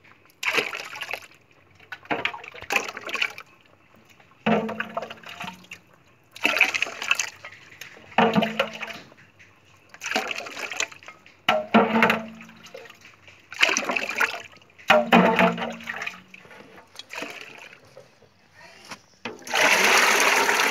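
Crushed pomegranate juice being scooped with a metal bowl and poured back into a large aluminium pot, a splashing pour repeated about every one and a half to two seconds. Near the end a heavy, continuous pour of thick pulpy juice from one pot into another.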